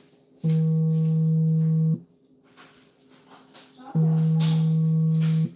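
A low, steady buzzing tone that sounds twice, each about a second and a half long: once starting about half a second in and again about four seconds in, the same pattern repeating evenly.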